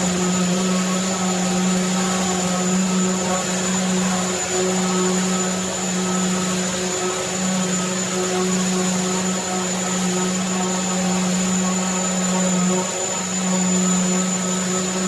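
Festool electric sander running steadily while sanding, a constant hum with a thin high whine above it and a few brief dips in the hum.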